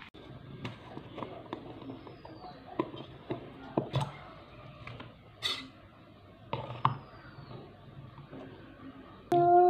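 Scattered small clicks and knocks of a plastic peanut butter jar and its screw lid being handled and opened, with a short rustle partway through. Near the end a child starts singing.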